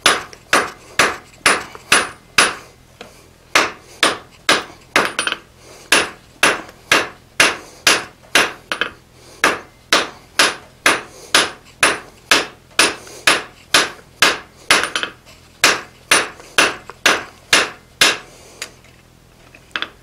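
Hand hammer striking hot steel on an anvil in a steady rhythm of about two to three blows a second, each blow ringing briefly, with a short pause near the end. The blows are drawing out the tang of a forged drawknife.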